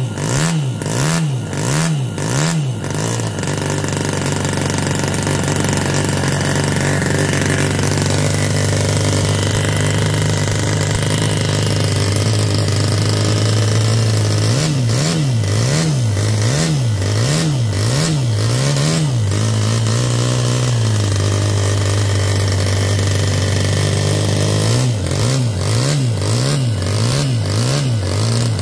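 Musa FV1A 7cc single-cylinder four-stroke model engine running, raspy. In three spells its revs surge up and down about one and a half times a second, going 'vroom, vroom' like it's on a limiter, and in between they hold steady. The owner puts the surging down to carburetor settings that still need adjusting.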